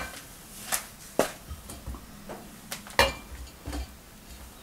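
Half a dozen short clinks and knocks of a spoon and ceramic bowl against a stainless steel mixer-grinder jar as grated coconut is tipped and scraped into it, the loudest about three seconds in.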